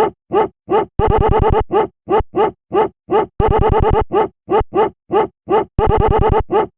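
A sampled dog bark looped into a beat. The same short bark repeats about three times a second, broken three times by stretches of fast stuttered repeats over a low buzzing pulse.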